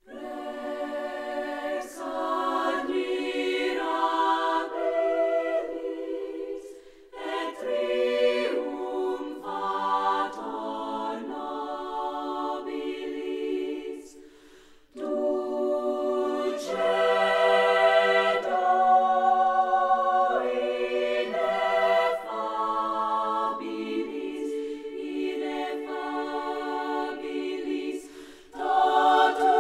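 A choir singing unaccompanied in long sustained phrases, with brief breaks between phrases.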